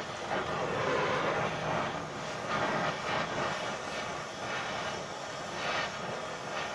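Oxy-fuel cutting-torch flame hissing steadily as it heats a quarter-inch round steel bar.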